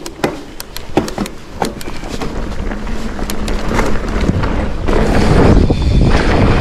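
Mountain bike rolling off down a dirt trail: scattered sharp clicks and clatter at first, then tyre rumble and wind on the microphone building steadily as it picks up speed.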